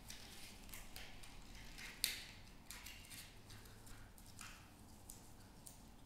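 Faint clicks and light rattles of a matchbox being handled and a match taken out, with one sharper click about two seconds in.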